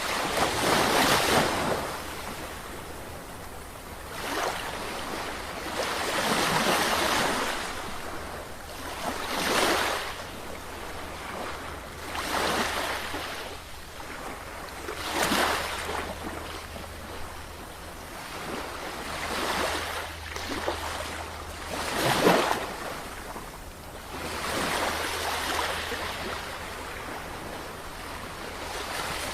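Sea waves washing in, the surf rising and falling in a swell of noise every two to three seconds, over a steady low rumble.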